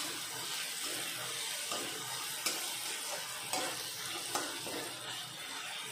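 Onion and ginger-garlic paste sizzling in oil in a large aluminium kadai, while a long metal spatula stirs and scrapes the pan with strokes about once a second. The masala is being fried until the paste is cooked through.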